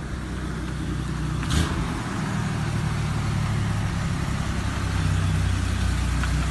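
An engine running steadily with a low, even hum that slowly grows louder, with a single sharp knock about a second and a half in.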